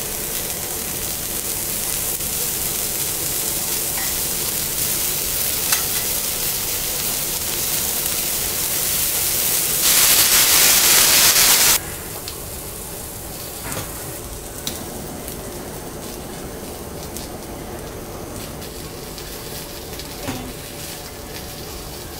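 Food sizzling on a hot teppanyaki griddle as a steady hiss. About ten seconds in, a much louder hiss lasts about two seconds and cuts off abruptly, after which a quieter steady hiss continues with a few small clicks.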